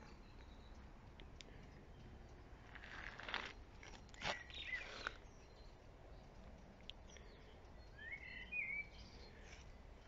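Quiet garden ambience with a few crunching footsteps around the middle, then a bird chirping a few times near the end.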